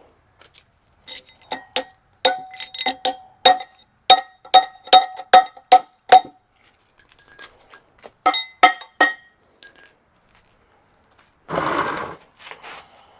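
Loose steel bolts clinking one after another against metal, about three ringing clinks a second for some five seconds, then a handful more about eight seconds in. A short burst of noise comes near the end.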